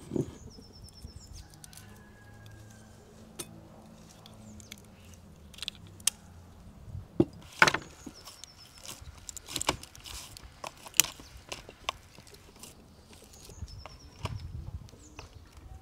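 Bread dough being kneaded by hand in a plastic basin: irregular soft slaps and knocks, with a few sharper knocks about halfway through. Faint birdsong in the background.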